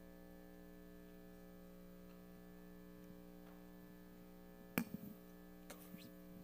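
Near silence in a hall: a steady electrical hum, with a few faint sharp clicks and knocks about five seconds in.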